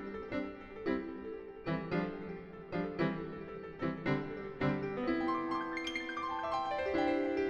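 Solo piano music: a rhythmic accompaniment of repeated chords, then about five seconds in a run of notes climbing high and coming back down.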